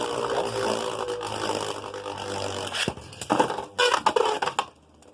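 Two Beyblade spinning tops whirring and scraping around a plastic stadium, with a hum that slowly falls in pitch. About three seconds in come several sharp clashes and knocks, and then the sound dies away near the end as the battle finishes.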